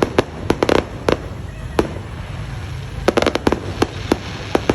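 Fireworks going off: an irregular string of sharp bangs and pops, with quick rattling clusters at about half a second in and again around three seconds in, over a steady low rumble.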